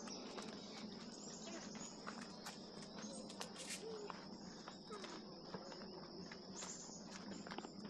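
Faint, steady, high-pitched insect chorus, with scattered footsteps on a trail.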